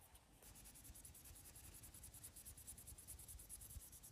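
Faint, rapid back-and-forth rubbing of a two-sided nail buffer's shine side on a fingernail, polishing the nail to a gloss. The strokes start about half a second in and keep an even pace.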